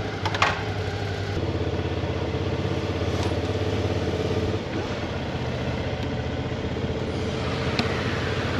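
Motorcycle engine running steadily at low revs, with a sharp click about half a second in.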